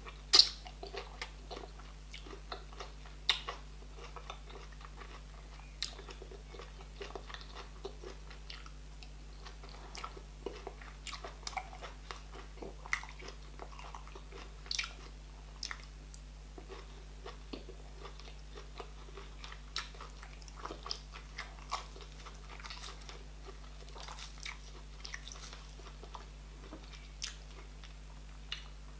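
Close-miked eating sounds of a person eating okra soup with meat and fufu by hand: wet chewing, lip smacks and finger sucking, heard as irregular sharp clicks, the loudest just under half a second in. A faint steady low hum runs underneath.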